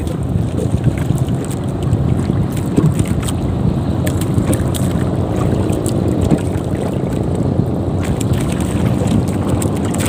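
Steady wind buffeting the microphone out on open water, with water lapping against a small boat and scattered light knocks.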